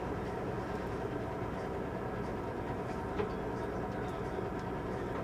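Blacksmith's forge running: a steady rushing roar of the fire and its air supply, with a faint steady hum underneath. A faint click about three seconds in.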